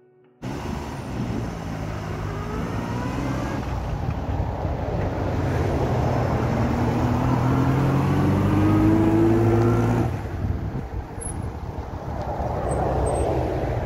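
1928 Singer Junior's small four-cylinder overhead-cam engine pulling the car along and rising in pitch as it accelerates. The pitch dips about ten seconds in, then climbs again.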